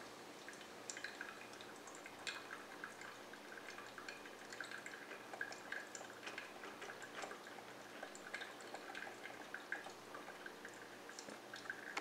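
Smeg DCF02 drip coffee maker brewing: coffee dripping into the glass carafe as a quiet, irregular patter of small drips and spatters.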